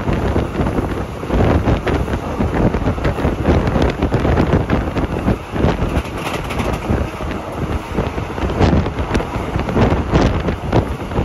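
Wind buffeting the microphone at an open window of a moving train, over the train's running noise.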